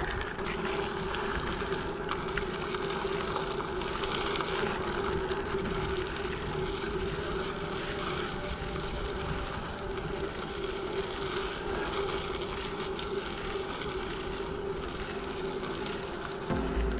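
Bicycle tyres rolling steadily over a packed gravel trail, a continuous rumble with a steady low hum, mixed with wind on the microphone.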